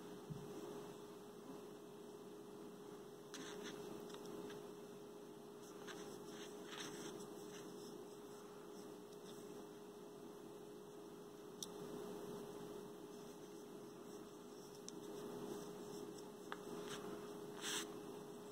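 A faint, steady electrical hum, with a few soft rustles and light clicks from a crochet hook and yarn being worked by hand.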